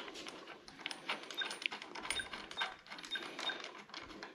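Light metallic clicks and clinks of motorcycle handlebars and hardware being handled and fitted, with about five short high squeaks spread through the middle.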